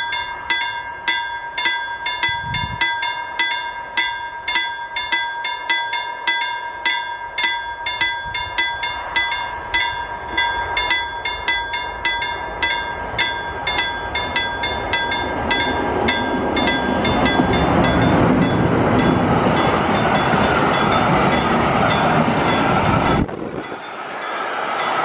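A regular ringing tick, about two to three strikes a second over a steady tone, fades out as a freight train of two Green Cargo electric locomotives and empty log wagons approaches. From about halfway the rumble and wheel noise of the passing train grows to fill the sound, then dips suddenly near the end and rises again.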